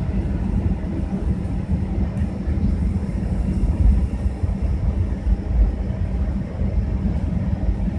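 Cabin noise of a Boeing 737-900ER taxiing on concrete: a steady low rumble with a faint steady hum running under it.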